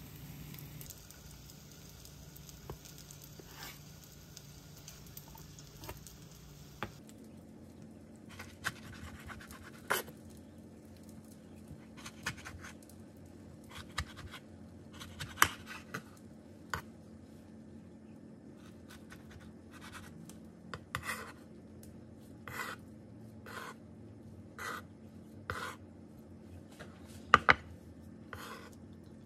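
A green garlic and egg pancake sizzles faintly in a frying pan. It gives way to a knife cutting the pancake on a wooden cutting board: sharp, separate knocks of the blade against the board about once a second, with two louder knocks close together near the end.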